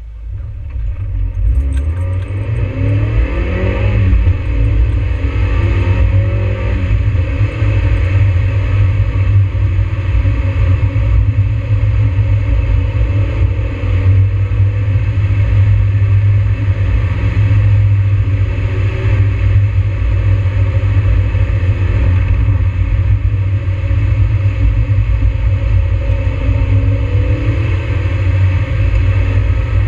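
NB Mazda Miata's four-cylinder engine heard from inside the cabin, pulling away with the revs rising and falling through gear changes in the first few seconds, then driving on with a steady low drone. Tyres hiss on the wet road.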